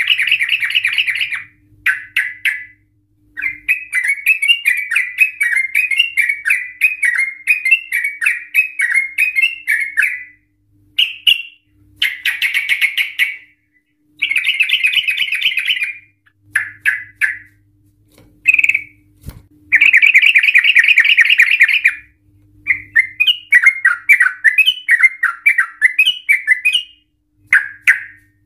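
Yellow-vented bulbul singing its long 'ropel' song in an excited state: loud bursts of rapid chattering trills lasting one to two seconds, alternating with runs of quick, choppy warbled notes and short pauses.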